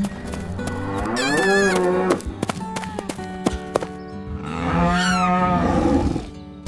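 A cow mooing twice, two long wavering calls a few seconds apart, over background music with clicking sounds between the calls.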